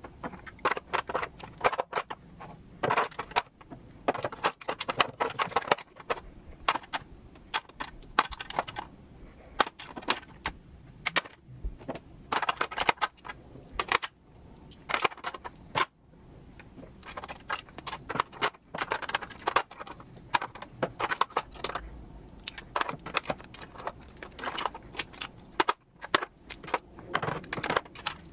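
Makeup bottles, tubes and compacts of plastic and glass being set down and shifted about in a clear acrylic drawer organizer: a run of irregular clicks, clacks and knocks.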